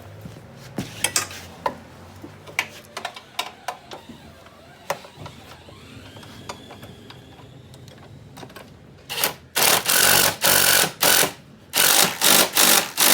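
Scattered metal clicks and clinks of tools and bolts being handled, then from about nine seconds in a power driver runs in several loud short bursts, driving in a fairlead mounting bolt.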